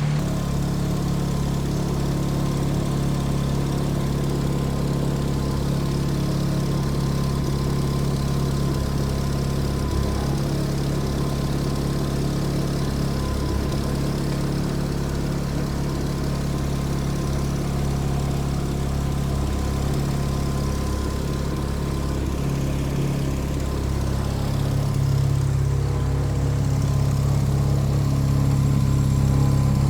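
Nissan SR20DET turbocharged four-cylinder engine idling steadily just after a rebuild with new main and rod bearings, running without the earlier knock and a bit smoother. It gets slightly louder about three-quarters of the way through.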